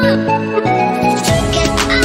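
Background music with a steady beat; a bass line and drums come in about halfway through.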